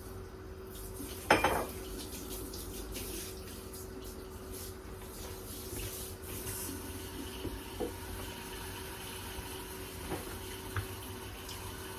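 Kitchen sink with the tap running, and a loud clatter of a pot or dishes against the sink about a second in, followed by a few lighter knocks and clinks.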